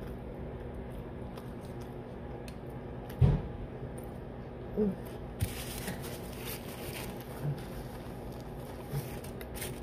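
Faint chewing and handling noises over a steady low hum. There is a single knock about three seconds in, then a stretch of paper rustling from a napkin wiping the mouth.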